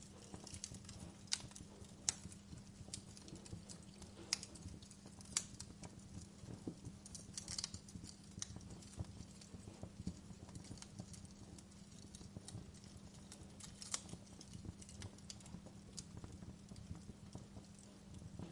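Open fire crackling in a fireplace: irregular sharp pops and snaps over a steady low rumble.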